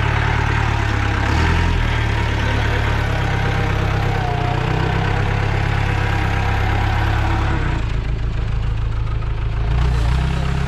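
Safari jeep's engine running steadily, a low rumble whose note shifts a couple of times.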